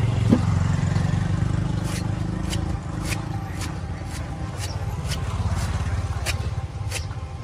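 Cleaver chopping into the husk of a young green coconut on a wooden block, sharp strikes about twice a second, starting about two seconds in, over a steady low rumble.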